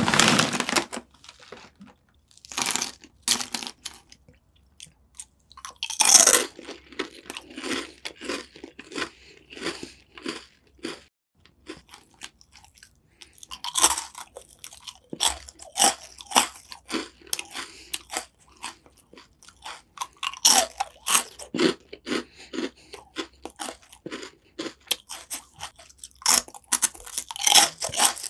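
Close-miked crunching and chewing of crisp puffed snack sticks: repeated sharp bites followed by runs of quick, irregular crunches as they are chewed. It opens with a loud noisy burst right at the start.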